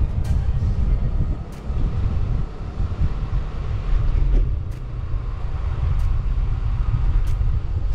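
Wind buffeting the microphone as a low, steady rumble during a bicycle ride, with light sharp ticks about every second and a quarter in the second half.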